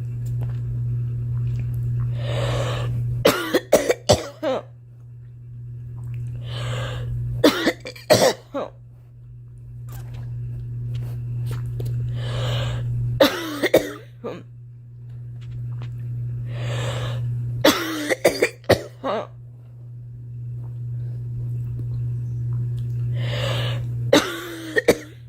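A girl coughing in five bouts about every five seconds, each a drawn-in breath followed by several quick coughs. A steady low hum runs underneath.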